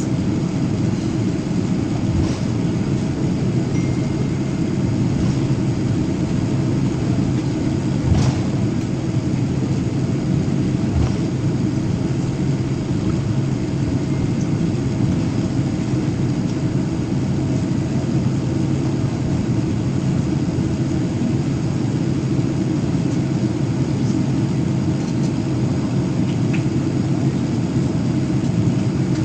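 Steady low rumble inside a Boeing 787 Dreamliner cabin after landing: the engines at idle and the cabin air running, with one brief click about eight seconds in.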